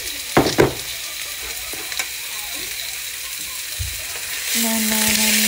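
Pork belly slices sizzling in a nonstick frying pan, with two sharp clicks about half a second in. The sizzle grows louder near the end, when a steady held tone joins it.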